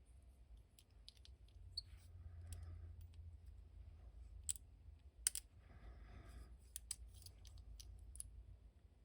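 Faint, irregular clicks and ticks of small hard-plastic action-figure parts being handled and pried apart, with two louder clicks about four and a half and five and a half seconds in.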